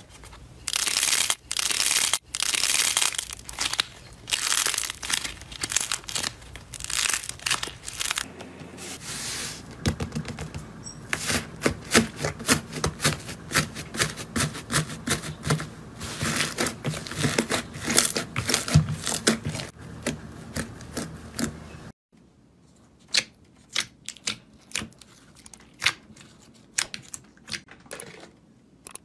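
Soft slime squeezed, pressed and poked by hand, giving a run of loud crackling squishes and many sharp pops. About three quarters of the way through it turns quieter, with separate crisp clicks.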